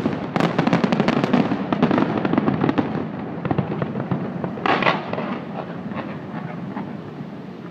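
Fireworks display: a dense, rapid crackling of many small bursts for the first few seconds, thinning out, with one louder burst about five seconds in, then dying away.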